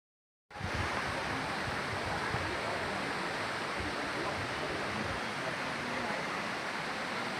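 Waterfall rushing in a steady, even roar that starts about half a second in.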